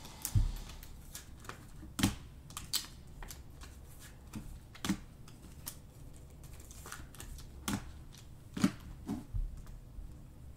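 Trading cards and clear plastic sleeves handled by hand: irregular sharp clicks and crinkles of plastic and card stock, a dozen or so, spread unevenly.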